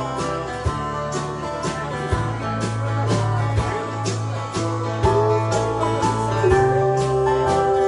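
Live band playing an upbeat song: strummed acoustic guitar and a bass line over a steady drum beat of about two hits a second. A long held melody note comes in over it in the second half.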